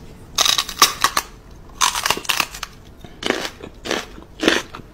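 A person making mock crunching, chomping noises with her mouth while pretending to bite a puppy's paw, in a string of short bursts.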